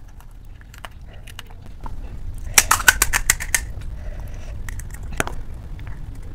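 Close-miked handling of crisp pani puri shells and filling: scattered clicks and crackles, with a quick run of sharp cracks about two and a half to three and a half seconds in.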